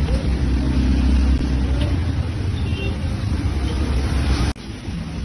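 Steady low rumble of street traffic, cut off abruptly about four and a half seconds in and continuing more quietly after.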